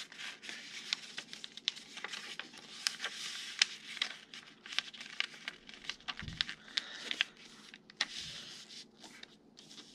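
A sheet of paper being folded and creased by hand, rustling and crinkling with many short sharp crackles as the fold is pressed flat. A soft low thump about six seconds in.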